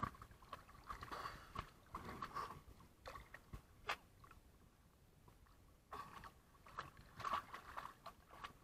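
Small splashes and water lapping right at a waterproof action camera's housing as the swimmer holding it treads water, in short irregular spurts with little clicks and a quieter stretch midway.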